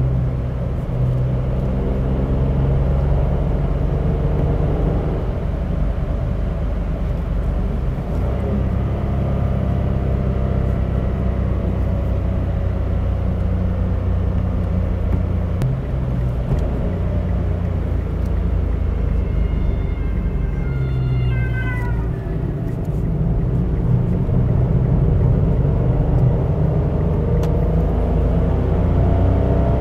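Cabin sound of a 2018 Mitsubishi Space Star 1.2's three-cylinder engine and tyres at high Autobahn speed: a steady drone, the engine note climbing near the start and again near the end as the car accelerates. About two-thirds through, a brief high whine falls in pitch.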